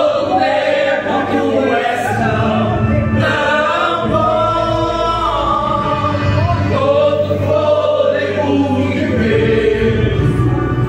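A man and a woman singing a gospel worship song in Portuguese into microphones, with music under the voices.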